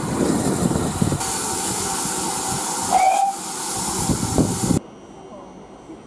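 Steam locomotive whistle blowing over a strong hiss of steam and the rumble of the moving train, heard from a carriage. It cuts off suddenly almost five seconds in, leaving a much quieter background.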